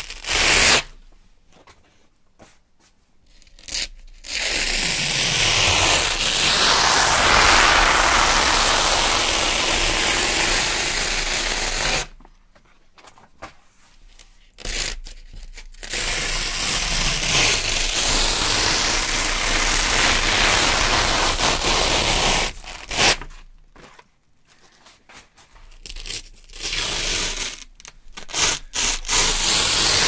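Wide hook-and-loop (Velcro) strip being slowly peeled off a large Velcro pad, a crunchy ripping. It comes as three long peels of several seconds each, with pauses of a few seconds and a few short tugs between them.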